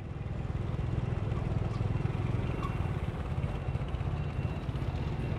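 Motorbike engines idling in street traffic while stopped at a red light: a steady low engine sound.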